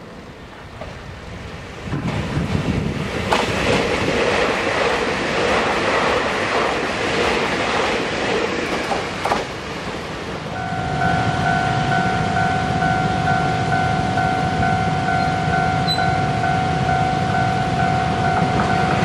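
TEMU2000 Puyuma tilting express train running on the rails with a steady rumble and a few sharp clacks. From about ten seconds in, a level-crossing warning bell rings steadily as the train approaches the crossing.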